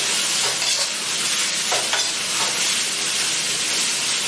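Pickled mustard greens, pickled chilies and pickled ginger sizzling in hot lard in a wok, stirred with a metal ladle that scrapes over the pan now and then: the stir-fry stage where the pickles are fried until fragrant.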